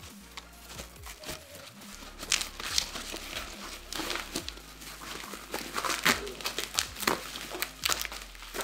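Plastic bubble wrap crinkling and crackling as it is pulled off a large framed plaque and bunched up by hand, in irregular sharp rustles.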